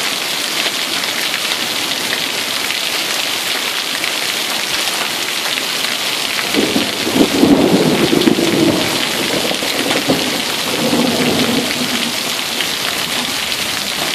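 Heavy rain pouring down steadily in a storm, with a roll of thunder rumbling in about halfway through and fading over several seconds.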